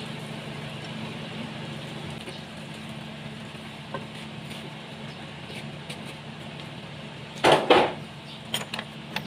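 A steady low machine hum with light scattered clicks of tools on metal engine parts, then two loud, short rubbing knocks close to the microphone about seven and a half seconds in, followed by a few sharp clicks.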